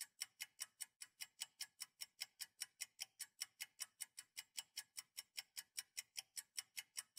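Faint, rapid clock-like ticking used as a sound effect, about five sharp, high-pitched ticks a second in an even rhythm.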